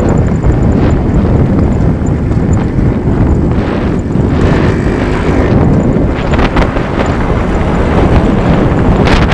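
Wind buffeting the microphone of a moving Yamaha RX100 motorcycle, with its two-stroke single-cylinder engine running steadily underneath.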